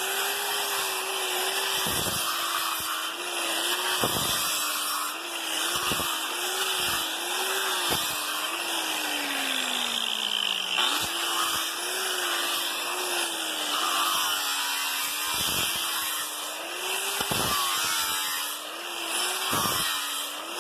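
Angle grinder with a slit abrasive sanding disc sanding a wooden slab and its resin-and-sawdust filler: a motor whine that wavers as the disc is pressed into and eased off the wood, over a steady hiss of sanding. About eight seconds in, the motor pitch sinks steadily for a couple of seconds under load before picking back up, and a few brief knocks sound along the way.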